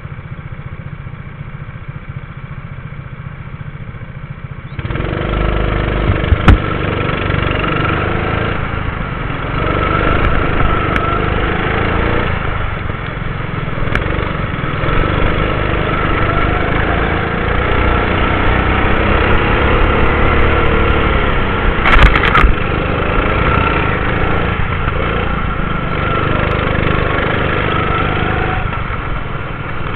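Go-kart engines idling on the starting grid, then, about five seconds in, the kart's engine running hard among the pack, its pitch repeatedly rising under acceleration and dropping as the throttle is lifted. Two sharp knocks stand out, one about six seconds in and one about twenty-two seconds in.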